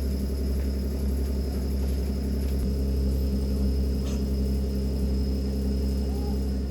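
Steady low electrical hum with several held tones from a Hakone Tozan Railway train's onboard machinery, holding one pitch throughout.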